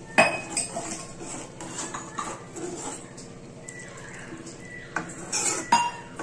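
A steel ladle knocking and scraping against a metal cooking pan while a thick curry is stirred. There is a sharp clank just after the start and a few more knocks near the end.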